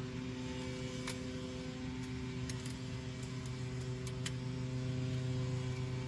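A steady electrical hum, with a few faint clicks of a small screwdriver working a wire terminal screw on a garage door safety sensor.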